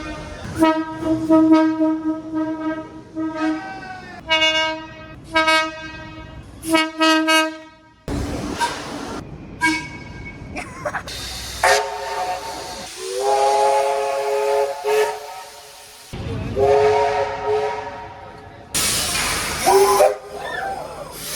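Heritage train horns and whistles sounding one after another: first about ten short single-note toots, some quick and some held, one bending up in pitch. Then several multi-note chime whistles, each held for a few seconds and rising slightly in pitch. Near the end there is a loud hiss of escaping steam under a wavering whistle.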